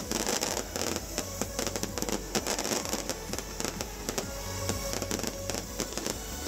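Fireworks going off overhead: many sharp cracks and crackles in quick succession, over electronic dance music from the festival sound system.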